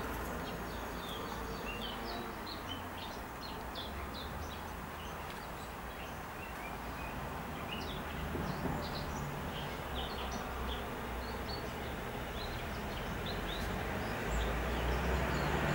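Small birds chirping in short, scattered notes over steady outdoor background noise, which grows a little louder near the end.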